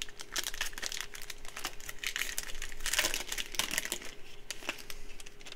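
Foil wrapper of a Panini Prizm football card pack crinkling and tearing as it is pulled open by hand, with dense crackling that is loudest about three seconds in.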